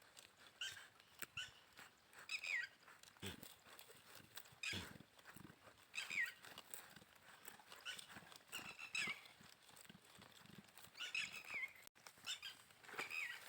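Young goats bleating in short, high calls that fall in pitch, repeated every second or two, with a couple of dull knocks a few seconds in.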